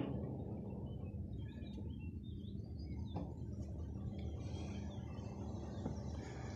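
Birds chirping in short scattered calls over a steady low outdoor rumble, with two faint clicks, one at the start and one about three seconds in.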